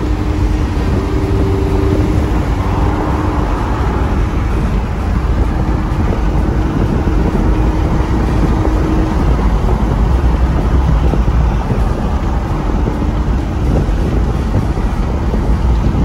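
Steady road and engine noise of a sports car cruising at highway speed, heard from inside the cabin and heaviest in the low end. A faint steady hum runs through the first half and fades out about nine seconds in.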